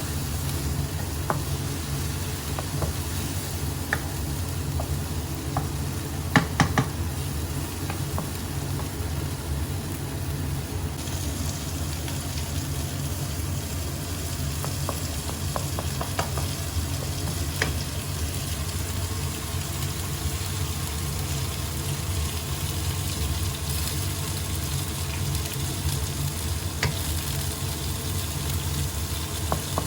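Asparagus stir-frying with shrimp paste in a hot pan: a steady sizzle over a low hum, with a utensil clicking against the pan now and then, loudest in a quick run of clicks about six seconds in.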